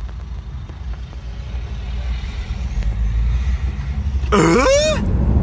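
Car engine and road noise heard from inside the cabin, a low rumble growing steadily louder as the car pulls away and speeds up. About four seconds in, a short loud pitched sound sweeps down and back up across it.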